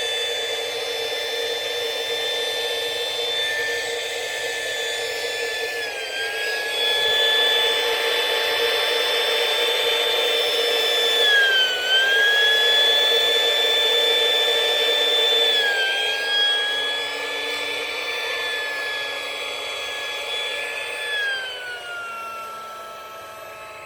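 Battery-powered electric air mattress pump running with a steady whine. Its pitch dips briefly and recovers three times, then drops lower near the end.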